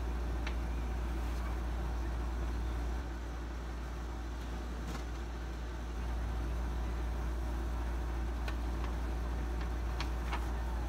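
A steady low hum, slightly quieter for about three seconds in the middle, with a few faint clicks and taps.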